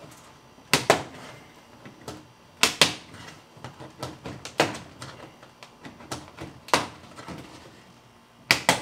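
Vinyl soffit panels clacking as they are pried with a siding tool and pushed up until the lip snaps into place: a run of sharp plastic clicks, the loudest coming in pairs about every two seconds.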